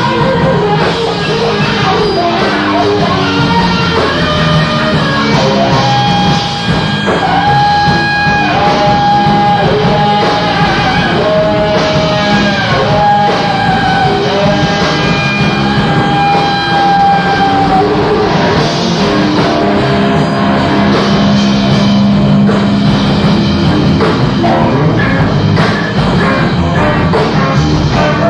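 Live jazz-rock fusion band playing, with drums and a full band sound. A long, held lead melody with slight bends runs through the middle, and a sustained low note follows near the end.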